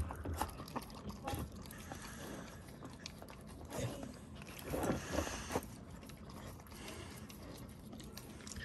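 Samoyed puppy eating from a ceramic bowl: irregular crunching and chewing with small clicks, loudest about four to five seconds in.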